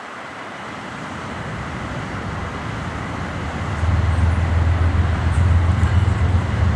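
Rumble of approaching diesel locomotives, not yet in sight, growing louder; a steady low drone sets in about four seconds in.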